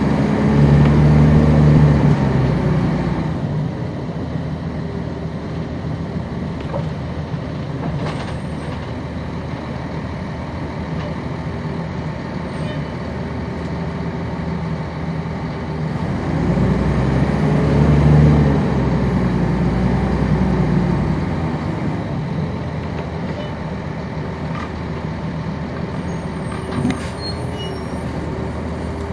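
Cummins ISC diesel engine of a 1999 NovaBus RTS transit bus heard from on board while driving. The engine is loud for the first couple of seconds, eases to a steadier run, then pulls harder again from about 16 to 21 seconds in, its pitch rising and falling before settling.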